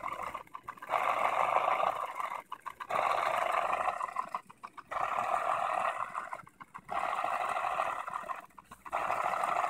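Small electric pumps of an Arduino-controlled drink mixer pushing liquid through plastic tubing. They run in repeated stretches of about a second and a half, with short pauses between, about one every two seconds.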